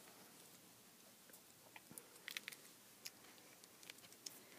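Near silence: faint room tone with scattered soft clicks and rustles of handling, a small cluster of them about two and a half seconds in.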